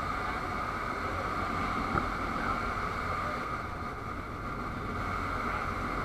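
Tour boat under way, its motor running steadily with wind and water noise on the microphone; a brief knock about two seconds in.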